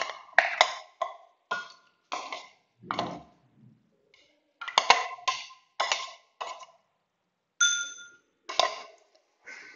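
A metal spoon scraping and knocking chopped coconut out of a plastic hand-chopper container into a ceramic bowl: about a dozen irregular clinks and taps, one near the end ringing briefly.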